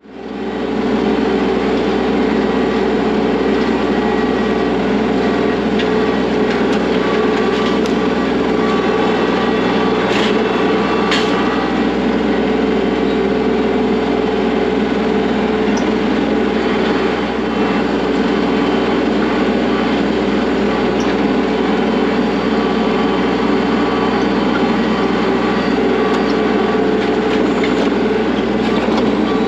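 Kubota L3301 tractor's three-cylinder diesel engine running steadily under throttle, with a couple of light knocks about ten seconds in.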